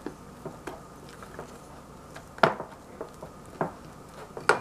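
A silicone spatula folds whipped cream into melted chocolate in a stainless-steel saucepan. Soft stirring sounds run under a few sharp knocks of the spatula against the pan, the loudest about two and a half seconds in.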